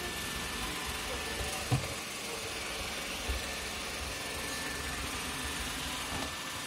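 iRobot Roomba 960 robot vacuum running steadily across a wooden floor, with a brief thump about two seconds in and another a little after three seconds.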